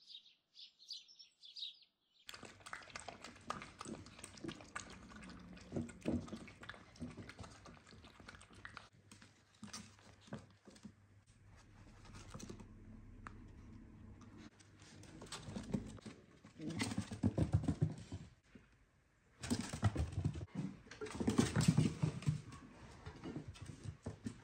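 Birds chirping for about two seconds. Then a miniature dachshund puppy plays on a bare wooden floor: its claws click and scrabble on the boards amid scuffling and thumps as it pounces on a soft toy, loudest about 17 and 21 seconds in.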